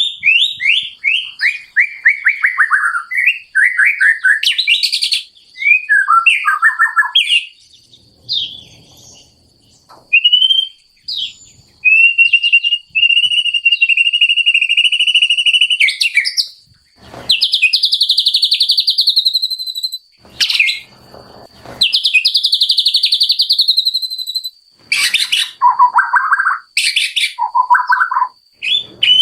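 White-rumped shama (murai batu) singing a varied song: fast runs of repeated whistled notes, a long even trill, harsh buzzy phrases and some lower fluted notes, with short pauses between phrases.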